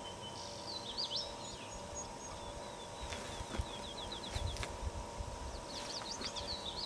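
Songbird singing: a quick, warbling phrase about half a second in, a rapid run of repeated notes around three seconds in, and another warbling phrase near the end, over steady rural background noise.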